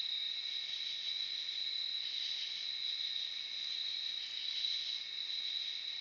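Steady, high-pitched chorus of night-singing insects, crickets, running unbroken.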